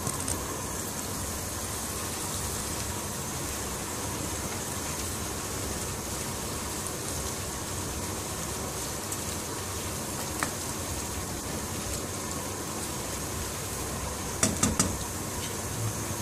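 Sliced onions sizzling in oil in a wok, a steady hiss while they fry. About ten seconds in comes a single tick, and near the end three quick clacks of the stirring spoon knocking against the pan.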